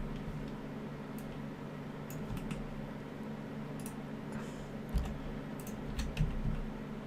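Scattered, irregular clicks of a computer keyboard over a steady low hum.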